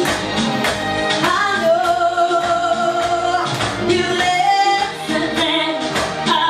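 A woman singing a pop song live over instrumental backing with a steady beat, holding one long note in the middle.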